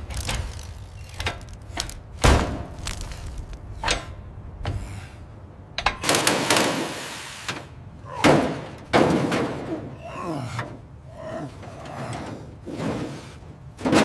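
Heavy metal engine parts clunking and knocking during disassembly: several sudden thuds with rough scraping noise between.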